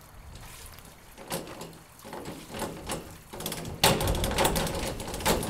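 Diving springboard knocking and rattling under a diver's steps and bounce, with the loudest bang at takeoff a little under four seconds in.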